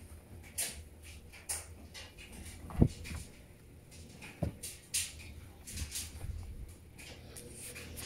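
Clothes being dropped by hand into a top-load washing machine's steel drum: brief fabric rustles and soft thuds, with one sharper knock about three seconds in and another a little later.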